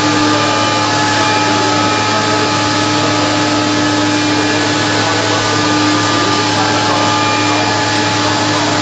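CNC machining center running steadily: a continuous whir with a few held whining tones and no change in level.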